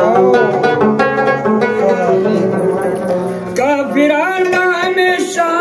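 Pashto ghazal music: a rabab plucks a quick melodic run over a held low note. About three and a half seconds in, a man's voice comes in singing with a wavering, ornamented line.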